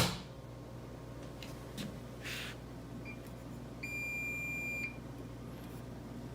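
Electronic beeping from a Bosch 800 Series dishwasher's control panel: a short blip about three seconds in, then one steady high beep lasting about a second. A sharp click comes right at the start, with a low steady hum underneath.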